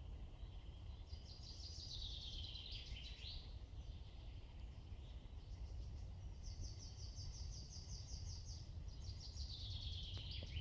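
Songbirds singing in a spring woodland: two songs that fall in pitch and end with a flourish, near the start and near the end, and a rapid even trill held at one pitch in between, over a low steady rumble.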